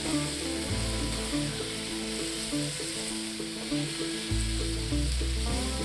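Bacon-wrapped venison backstrap sizzling on a hot grill grate, a steady frying hiss, under background music with held notes and a stepping bass line.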